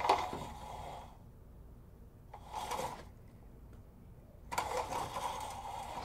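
Horizontal window blinds being opened, the slats clattering and rustling against each other in three bursts. The first starts sharply and fades, the second is short, and the third, near the end, is the longest.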